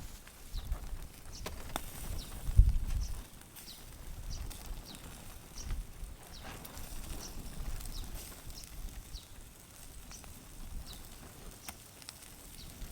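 Campfire crackling with scattered sharp pops, under low knocks of handling and one heavier thump about two and a half seconds in; short high chirps recur throughout.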